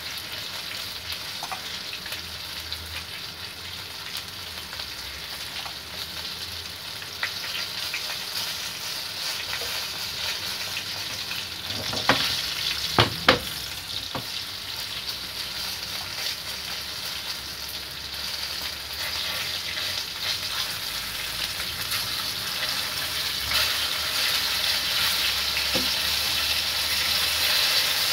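Breaded chicken pieces sizzling as they fry in hot oil in a wok: a steady crackling hiss that grows louder over the last part. A few sharp clicks come about halfway through.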